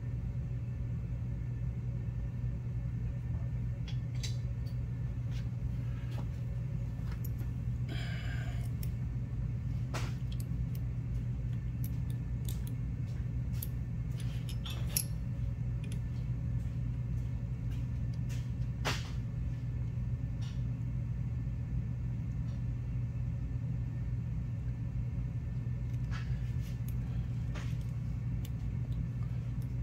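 Light metallic clicks and taps of hand tools being picked up and set down on the steel mill table, with a hex key working in the boring head, over a steady low hum.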